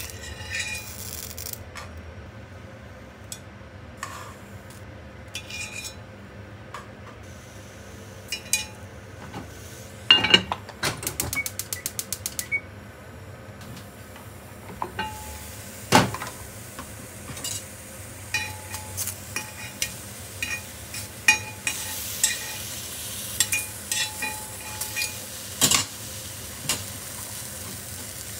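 Whole eggplants sizzling in a dry, very hot mini cast-iron Dutch oven, cooking in their own moisture with no oil. Metal tongs clink against the pot as they are turned, with a few loud clanks of cast iron and many small clicks.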